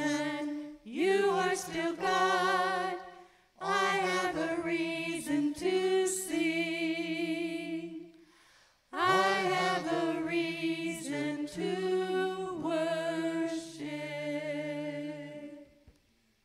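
A small worship team of men and women singing a slow chorus together in harmony, long held notes with vibrato, with short breaths between phrases and the last line fading out near the end.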